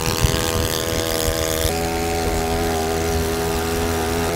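Small gas outboard motor with a weed-eater-style engine running steadily at speed, pushing a small jon boat. Its drone changes pitch about a second and a half in.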